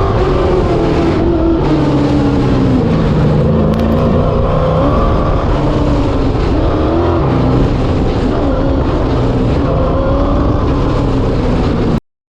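Car engine being driven hard on an autocross course, its pitch rising and falling as the car accelerates and slows through the course. The sound cuts off abruptly near the end.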